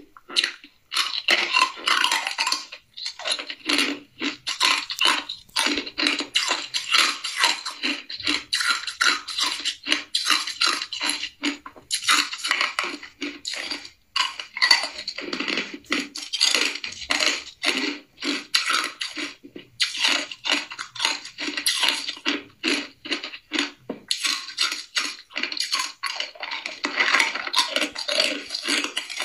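Hard ice being bitten and chewed: rapid, dense crunching and cracking, with a couple of short pauses.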